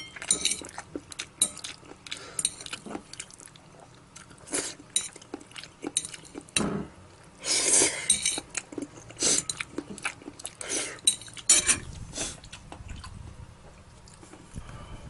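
Utensils clinking and scraping against a bowl or dish during a noodle meal: irregular small clicks and clinks, with busier clusters about halfway through and again near the three-quarter mark.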